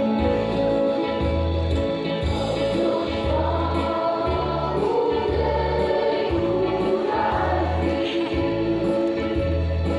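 A large mixed choir singing with band accompaniment, amplified through loudspeakers, over a steady bass beat about once a second.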